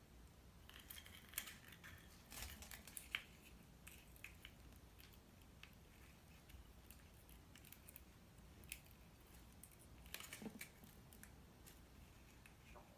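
Faint clicks and rustles of hollow plastic Easter egg halves being handled and pressed shut on fishing line, in small clusters in the first few seconds and again about ten seconds in.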